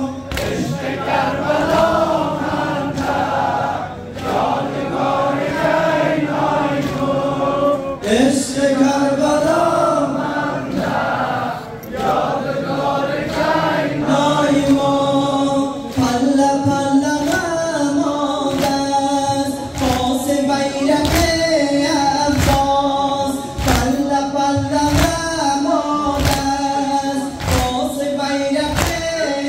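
A crowd of mourners chanting a Muharram lament (nawha) together. From about halfway through, a steady rhythm of chest-beating (matam) strikes keeps time with the chant.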